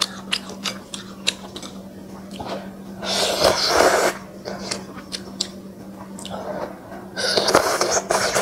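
A person slurping spicy noodles from chopsticks, two long loud slurps, one about three seconds in and one near the end, with short clicks between them.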